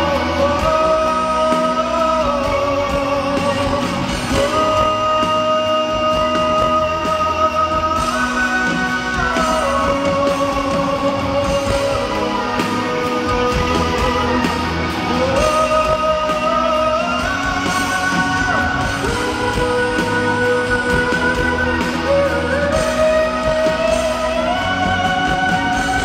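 Male singer singing a Mandarin pop-rock song live over a full band backing, holding long notes that slide up and down between pitches.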